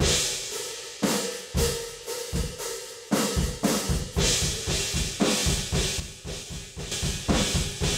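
Room-microphone track of a rock drum kit playing a fast beat, with kick, snare and cymbals, squashed by an ultra-fast compressor that gives the kit a blunt, aggressive sound.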